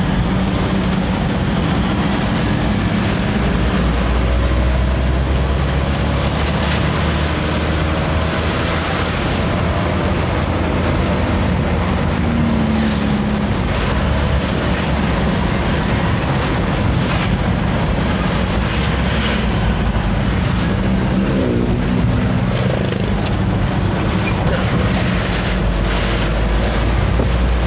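Engine and road noise heard from inside a moving truck's cab, steady throughout, with the engine note shifting briefly a couple of times.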